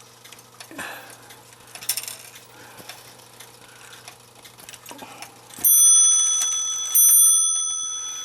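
Clock movement's strike train: small mechanical clicks and rattles, then the hammer strikes the bell twice, about a second and a half apart, each stroke ringing on and dying away slowly.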